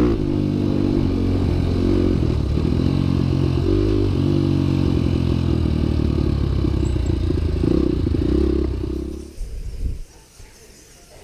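Motorcycle engine running, its pitch shifting up and down with the throttle, then dying away about nine seconds in.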